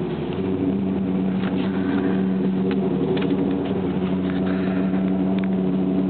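Alfa Romeo 8C Competizione's V8 engine running at steady revs, heard from inside the cabin as an even, unchanging drone.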